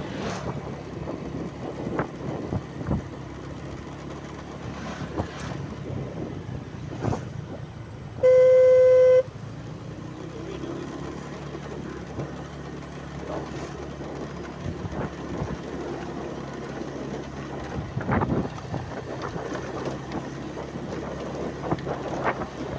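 A vehicle running with a steady low engine hum, and one horn honk of about a second at a single steady pitch, about eight seconds in.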